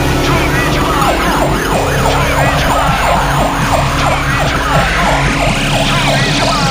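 Fire engine's electronic siren sounding in fast, repeated up-and-down sweeps, about three or four a second, as the appliance turns out. A separate tone climbs steadily higher and higher alongside it.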